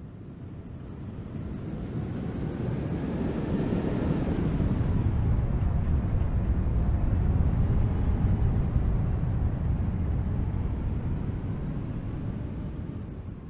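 An aircraft passing by: its engine noise builds to a peak around the middle and then fades, with a faint pitch that drops as it goes past.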